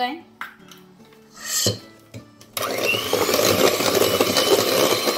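Electric hand mixer switched on about two and a half seconds in, its motor whine rising as it spins up, then running loud and steady while the beaters churn egg into creamed butter in a stainless steel bowl. A brief knock comes before it.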